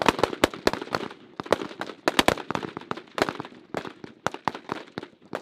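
Rifle fire from several shooters on a firing line: many sharp shots in quick, irregular succession, often overlapping.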